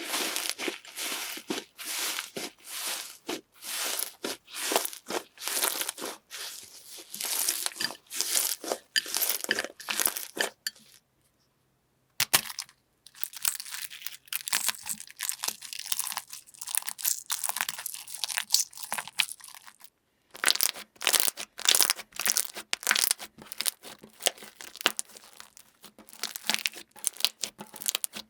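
Close-up crackling and crunching of a crunchy ASMR texture material being squeezed and pressed by hand: dense runs of small sharp crackles in three stretches, broken by short pauses.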